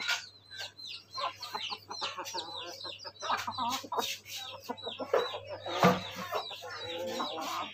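Chicks peeping continually in short, high chirps, with a hen clucking lower beneath them. A single sharp thump about six seconds in.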